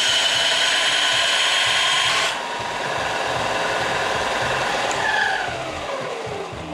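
Bench belt sander grinding the cut ends of steel tube elbows: a loud, steady grinding that eases about two seconds in. About five seconds in the sander is switched off, and its motor whine falls steadily as it spins down.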